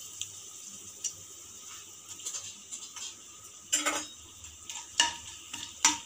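Whole spices sizzling softly in hot mustard oil in a kadhai, with a metal slotted spatula clinking and scraping against the pan a few times in the second half.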